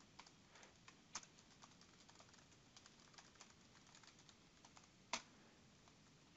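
Faint typing on a computer keyboard: scattered soft keystrokes, with one louder keystroke about five seconds in.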